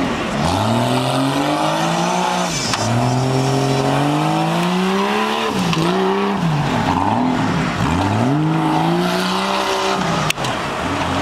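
Tough-truck Jeep's engine revving hard on a dirt course, its pitch climbing and dropping back about four times as the throttle is worked over the jumps. A single sharp click about ten seconds in.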